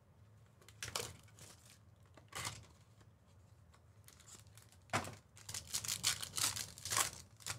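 Trading-card packs being ripped open, their wrappers tearing and crinkling. There is a short rip about a second in and another a little after two seconds, then a longer, louder run of tearing and crinkling from about five seconds to near the end.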